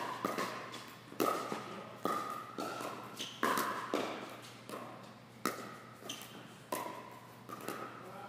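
Pickleball rally: paddles striking the hollow plastic ball and the ball bouncing on the court, about a dozen sharp pops at an uneven pace of one to two a second, each with a short ring.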